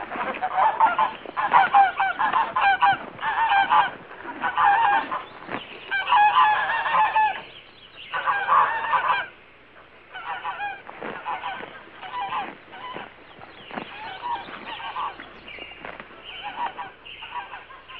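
Geese honking over and over in bunched runs of calls, loud for the first half and fainter after about ten seconds.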